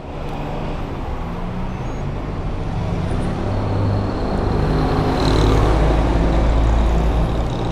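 Engine of a large road vehicle running close by, growing gradually louder, with a deep rumble swelling from about five seconds in.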